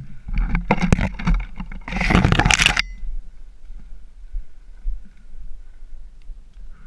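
Mountain bike rolling down a rocky dirt trail: tyres crunching over loose rock and the bike rattling. The noise is loudest in the first three seconds, with a dense burst of tyre noise on loose dirt about two seconds in, then quieter rolling with occasional clicks.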